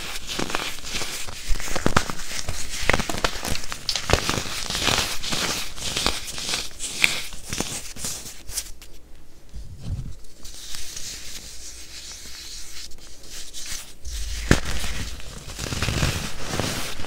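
Pressed baking soda crunching and crumbling in the hands, a dense crackle of small snaps and gritty rubbing. The crackle thins out for a couple of seconds about halfway through, and a dull low thump comes a little after two-thirds of the way.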